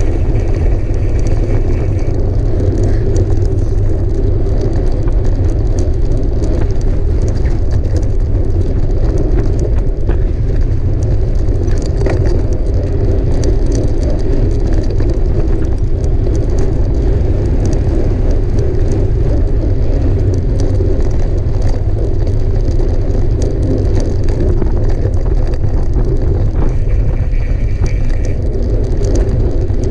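Mountain bike being ridden over a rough trail: a steady loud rush of wind on the microphone and rolling tyres, with many small clicks and rattles from the bike. A faint high whine comes in briefly about a second in and again near the end.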